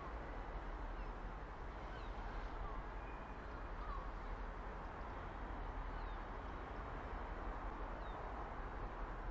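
Steady low rumble of a Class 70 diesel locomotive approaching slowly with a train of tank wagons, with small birds chirping faintly now and then.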